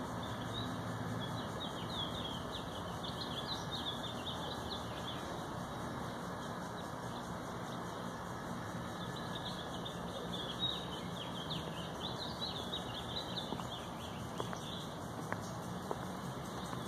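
Many small birds chirping together in quick, overlapping high chirps, busiest in two stretches, over a steady background noise.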